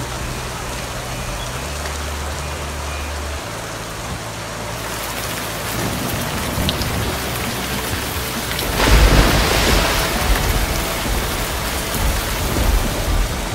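Heavy rain pouring down on pavement and parked cars, growing heavier about five seconds in. A louder low rumble comes about nine seconds in.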